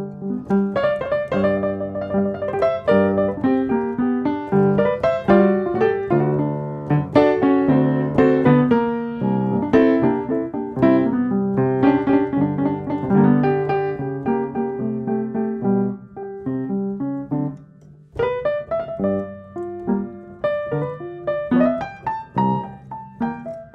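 Background piano music: a gentle melody over chords, with a brief drop about three-quarters of the way through before it picks up again.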